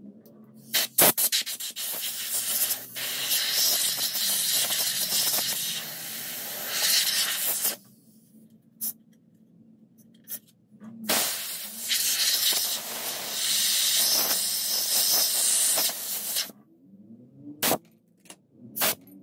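Two long blasts of compressed air, about six and five seconds each, blowing dust out of a console's cooling fan and heatsink, with a few sharp handling clicks between and after them.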